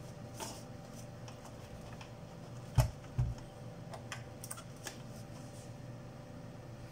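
Small clicks and taps from a Biosys BPM-200 pulse oximeter's plastic casing being handled and turned over, with two heavier knocks about three seconds in, over a faint steady hum.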